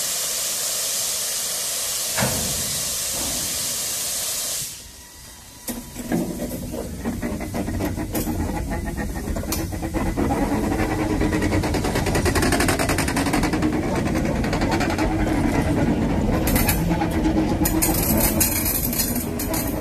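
Steam saddle-tank locomotive (1943 Robert Stephenson & Hawthorns, NCB No. 49): a loud steady hiss of steam that cuts off about five seconds in. Then the locomotive sets off working hard with a heavy train of loaded hopper wagons, its working and the wagons' rumble building and staying loud.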